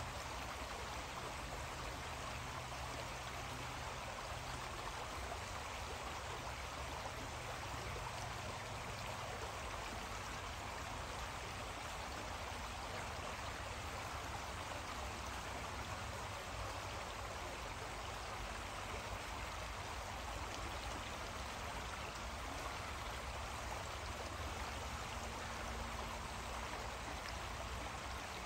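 Creek water flowing steadily, an even rushing sound with no change, over a low steady rumble.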